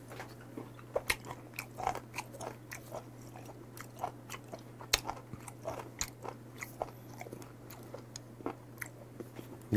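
Close-miked chewing of a mouthful of sashimi: irregular soft clicks and crunches, two or three a second.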